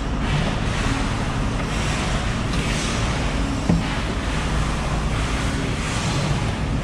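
Steady rushing background noise, heavy in the low end, with one short click a little past the middle.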